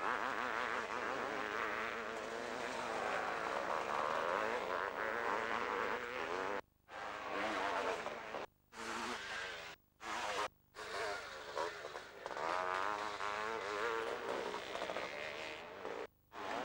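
500cc two-stroke motocross bikes racing, their engines buzzing and revving up and down through the gears. The sound cuts out abruptly for a moment about five times.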